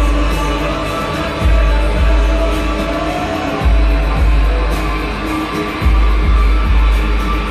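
Music with held, droning tones over a deep bass pulse that comes about every two seconds.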